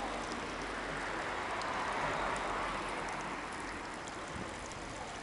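Water from a stone fountain splashing steadily, a continuous even rush that cuts off suddenly near the end.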